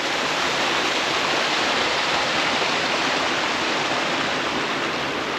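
Small waterfall: a steady rush of falling water.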